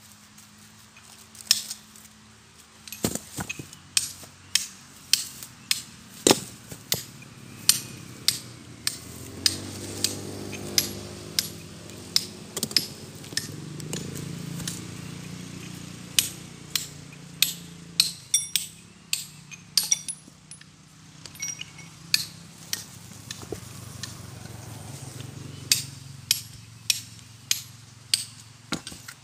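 Hammer blows on stone by hand, a long series of sharp clinking strikes at about one to two a second with short pauses. A low drone swells up in the middle and again near the end.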